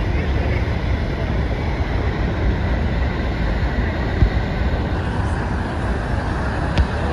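Niagara Falls roaring: a steady, low, even rush of falling water, with a short knock a little past halfway and another near the end.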